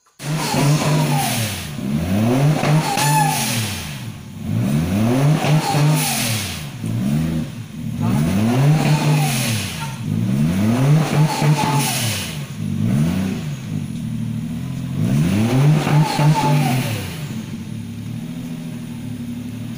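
Toyota 1JZ-GTE turbocharged straight-six, swapped into a Toyota Kijang, being revved up and let fall back over and over, every two to three seconds, then settling to a steady idle near the end.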